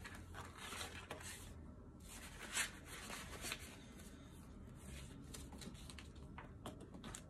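Faint rustling and crinkling of paper banknotes and the plastic pouches of a cash-envelope binder as bills are handled and pages turned, with a louder rustle about two and a half seconds in.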